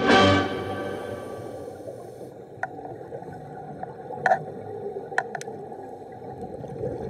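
Music fading out over the first two seconds, giving way to muffled underwater sound: scuba divers' exhaled bubbles gurgling, with a few sharp clicks.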